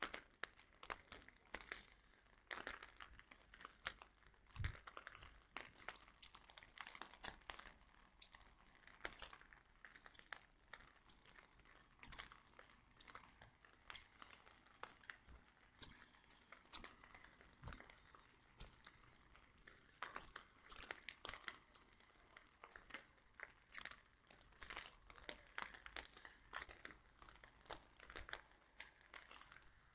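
Faint, irregular crackling and clicking, several a second: handling noise on a handheld phone's microphone.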